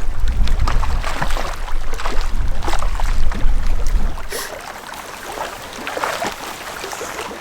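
Wind buffeting the microphone with a deep rumble, over irregular splashing and lapping of lake water; the wind rumble drops away about four seconds in, leaving the water sounds.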